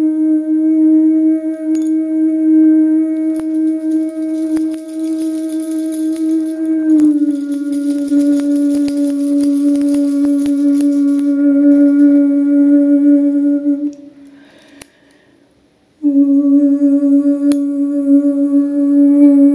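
A woman humming one long, steady held note that steps down slightly in pitch about seven seconds in. She breaks off for about two seconds near the end, then takes up the note again.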